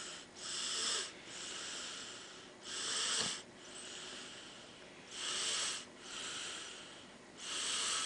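A person breathing heavily close to the microphone. A short, louder breath alternates with a longer, softer one, in a steady cycle of about two and a half seconds.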